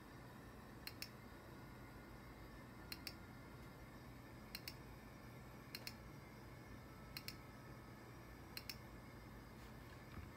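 Sharp clicks in quick pairs: six pairs, spaced one to two seconds apart, over a faint steady hum.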